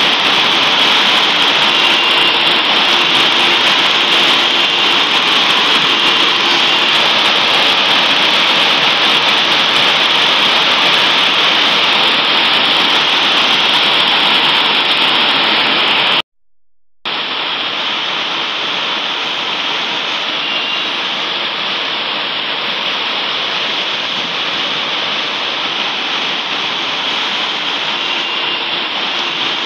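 Heavy rain pouring down in a steady, loud hiss. It cuts out for about a second near the middle, then goes on a little quieter.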